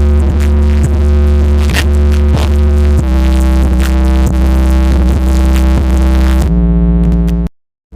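Loud electronic music with a heavy bass line and a drum-machine beat, played through a car-audio sound system of amplifier, woofers, horn drivers and tweeter. The music drops out abruptly to silence about half a second before the end.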